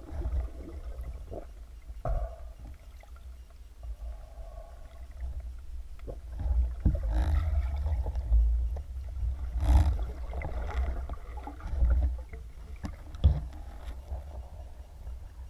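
Underwater water noise picked up by a camera in a waterproof housing on a speargun: a steady low rumble with scattered muffled knocks, and louder rushes of water a few times in the middle as the gun moves up toward the surface.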